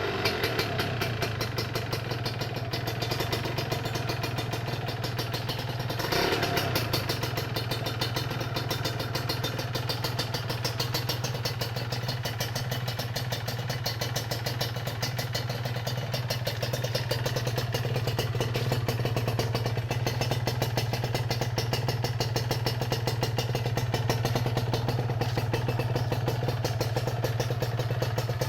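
Kawasaki Ninja R two-stroke single-cylinder engine idling steadily through a modified exhaust, with a crisp, rapid popping note. It is briefly louder about six seconds in.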